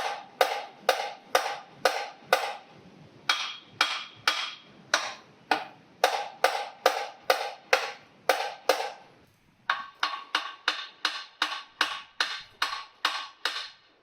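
Hammer blows ringing on the metal of a seized GM 3.6 V6 engine, about two a second, in four runs with short pauses, the last run a little faster. The engine stays locked and does not come free.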